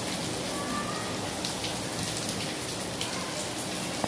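Heavy rain falling steadily, with individual drops striking close by now and then.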